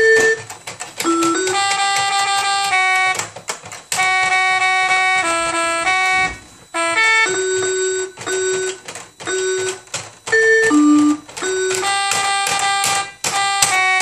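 Small electronic keyboard played by a toddler pressing several keys at once at random: steady electronic tones that hold without fading, jump in pitch irregularly every second or so, and break off for short gaps.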